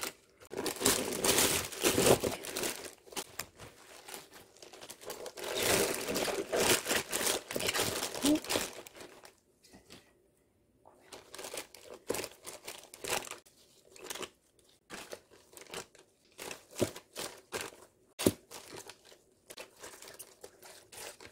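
Plastic bag liner and disposable gloves crinkling and rustling as hands pack vegetables into a lined kimchi container. Two dense spells of crinkling, a brief near-silence about ten seconds in, then sparser rustles and clicks.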